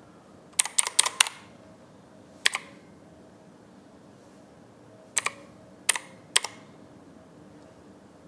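Keys on an MKA2C mechanical gaming keyboard being pressed: a quick run of four sharp key clicks about half a second in, then four more single presses spread out over the next several seconds.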